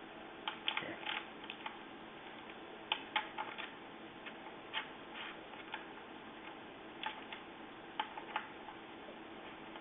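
Scattered light clicks and taps of small scooter parts and tools being handled, in a few irregular clusters, over a faint steady hum.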